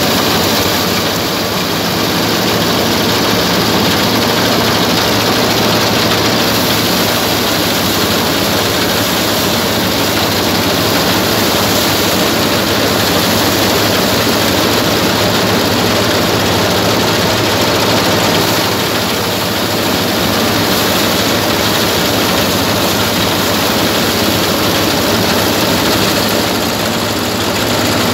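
Paddy thresher driven by a 190NL diesel engine, threshing rice: a loud, steady mechanical noise of the machine and engine running together, with a low engine hum beneath.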